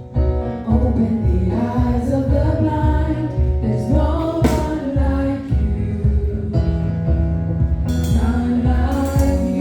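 Gospel worship song performed by singers over a band, with a steady pulsing bass beat.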